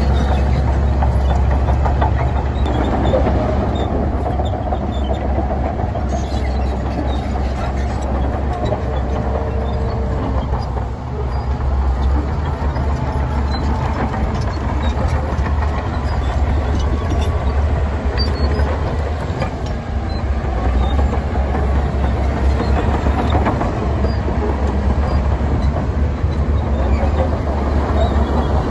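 Heavy diesel earthmoving machinery running steadily with a deep low rumble, with scattered metallic clanks and clicks.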